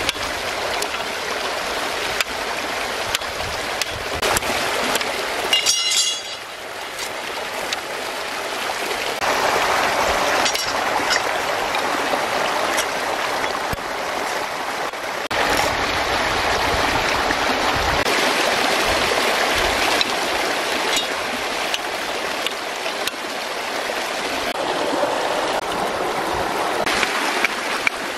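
Stream water running steadily, with occasional sharp taps of a long knife cutting green bamboo on rock.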